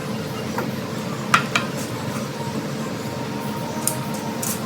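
A few clinks of a utensil against a pot as pieces of cooked chicken are scraped and stirred into a pot of pasta, over a steady background hum.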